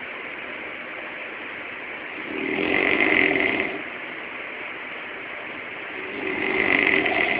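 A man snoring loudly: two long snores, one about two and a half seconds in and one near the end, each lasting a little over a second, with steady breathing hiss between them.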